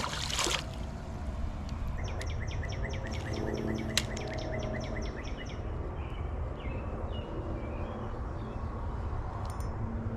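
A short splash, typical of a released fish dropping back into the water, then a songbird sings a fast run of about a dozen repeated notes, three or four a second, followed by a few scattered chirps, over steady outdoor background noise.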